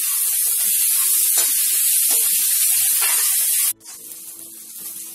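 Chopped onions sizzling in hot oil in a steel kadhai, stirred with a steel spoon that scrapes the pan now and then; the onions are frying toward light brown. The sizzle cuts off abruptly about three and a half seconds in, leaving it much quieter.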